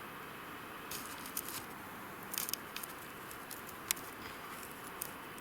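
Scattered crunches, rustles and a few sharp clicks of a person moving through deep snow, over a steady hiss of strong wind. The sharpest click comes about four seconds in.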